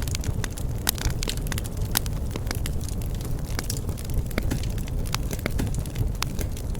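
Wood bonfire burning, with frequent sharp crackles and pops, several a second, over a steady low rumble of the flames.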